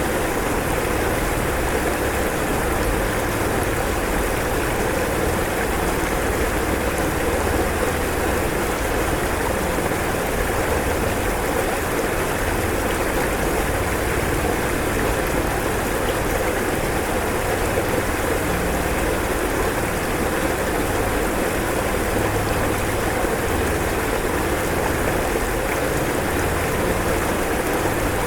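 Rushing floodwater: a steady, unbroken rush of water with a low rumble underneath.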